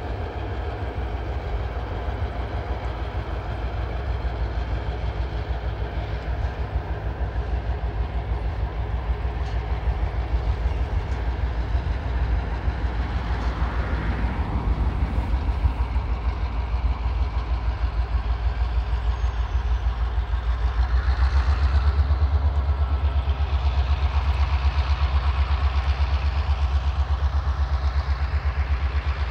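Several TasRail diesel locomotives hauling a freight train, their engines giving a steady pulsing low rumble that grows louder about two-thirds of the way through. A faint rising squeal comes a little before the middle and again later.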